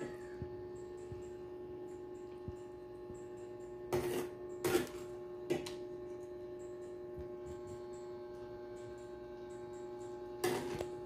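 A metal ladle knocking and scraping against an enamel pot while broth is served: three knocks about four to five and a half seconds in and one more near the end. A steady electrical hum runs underneath.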